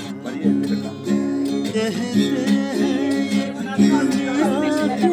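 Acoustic guitar strummed in a steady rhythm of chords. A voice sings along with it from about two seconds in.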